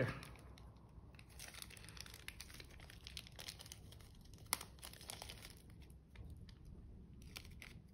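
Small clear plastic zip-lock bag crinkling faintly as fingers handle it and work it open, with one sharper click about halfway through.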